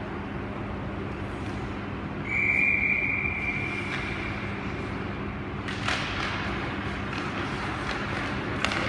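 Referee's whistle blown in one long, steady blast of about two seconds, over the constant hum of an ice arena. Later comes a scraping hiss with a couple of sharp knocks.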